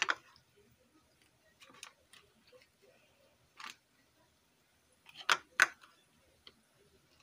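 A few sharp clicks and light taps of a basting brush against the marinade bowl and parchment-lined tray while a whole chicken is brushed with marinade: one at the start, fainter ones around two and three and a half seconds in, and two close together about five seconds in.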